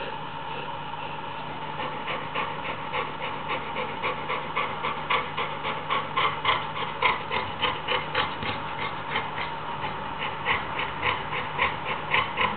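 Pregnant Labrador retriever snoring in quick, short breaths, about three a second, that grow louder after the first couple of seconds, over a steady background hum.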